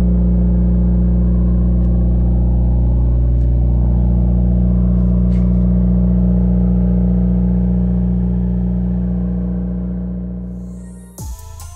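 Stage 2 2020 Subaru WRX's turbocharged 2.0-litre flat-four idling steadily on a cold start, deep and even, breathing through a Cobb intake, catted J-pipe and AWE Track Edition cat-back exhaust. It fades out near the end as electronic music cuts in.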